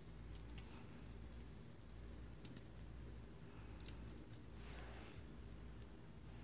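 Faint, scattered clicks and a soft swish about five seconds in, over a low hum: Ragdoll kittens scrabbling on carpet and batting at a feather wand toy.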